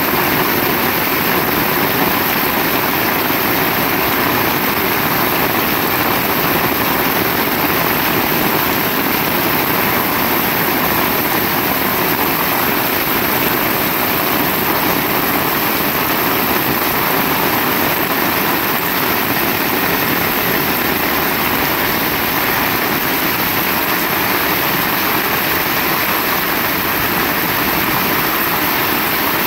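Heavy rain falling in a steady, unbroken downpour.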